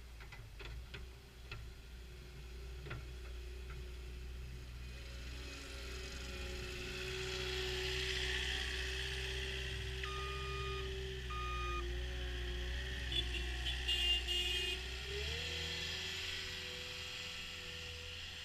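CAT 236D skid steer loader running, its engine hum steady and then stepping up in pitch late on, with a hiss rising through the middle. Two electronic beeps come about halfway through, followed by a quick cluster of short, higher beeps; a few light clicks sound at the start.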